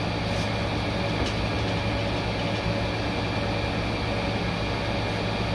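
Steady low mechanical hum of a machine running, with a couple of faint clicks about half a second and a second in.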